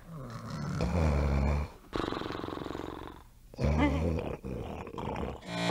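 People snoring in an exaggerated, comic way: a few long, low snores in a row.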